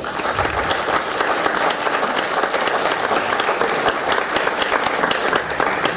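Audience applauding: many hands clapping together in a dense, steady, loud round of applause.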